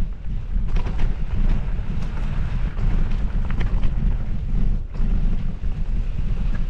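Wind buffeting the microphone of a camera riding along on a mountain bike, as a steady low rumble. Scattered clicks and rattles from the bike on rough trail come through it.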